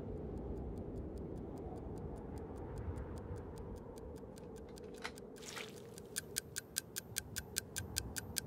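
Pocket watch ticking, about five ticks a second, faint at first and much louder from about six seconds in. A low steady rumble runs underneath.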